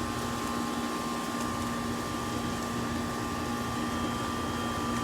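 A steady machine hum: an even noise with a few constant tones, not changing.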